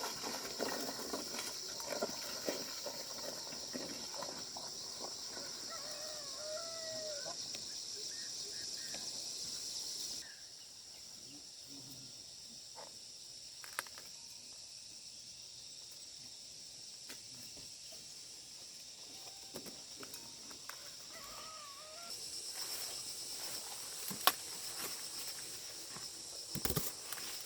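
Outdoor ambience of insects buzzing in a steady high-pitched chorus, with a few short chirping calls and scattered rustles and clicks. The insect chorus drops out about ten seconds in and comes back near the end.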